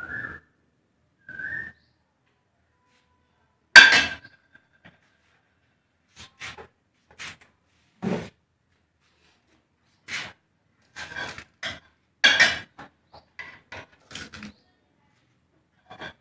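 Steel cookware and utensils clinking and knocking on a kitchen counter: one sharp metallic clank about four seconds in that rings briefly, then scattered lighter clinks and taps. Two short high whistle-like tones come right at the start.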